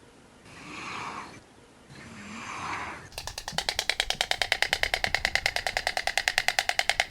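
Animal calls: two breathy, rasping calls, then about three seconds in a fast, even pulsing call of about ten pulses a second that runs on until it cuts off.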